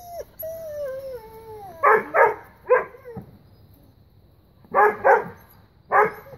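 A dog gives one long whine that falls in pitch, then barks: three short barks, a pause, then three more near the end.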